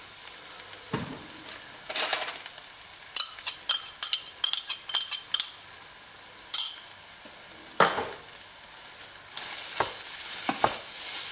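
Ground meat and mushroom filling sizzling in a non-stick sauté pan while it is stirred with wooden spatulas. A quick run of clicks and knocks from the spatulas on the pan comes a few seconds in, and a couple of single knocks follow. The sizzle grows louder near the end.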